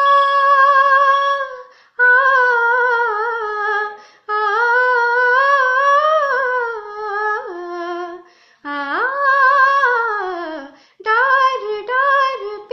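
A woman singing unaccompanied on open vowels, holding long notes with vibrato and sliding between them in the style of an alaap. The phrases last about two seconds each, with short breaths between.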